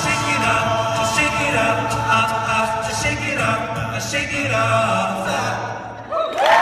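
Men's a cappella group singing a pop-song arrangement: several voice parts in harmony over a sung bass line. Near the end the sound drops away briefly, then the voices slide upward together.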